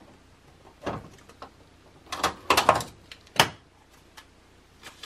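Sticky notes being peeled off a pad and pressed down by hand: a short rip about a second in, a cluster of quick scraping rips a little after two seconds, and one last sharp one about a second later.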